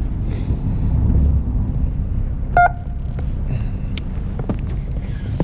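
Fishing boat's engine running with a steady low hum. About two and a half seconds in, one short electronic beep sounds.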